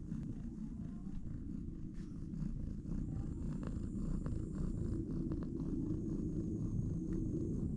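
Mother cat purring steadily while nursing her newborn kittens, with a few faint clicks mixed in.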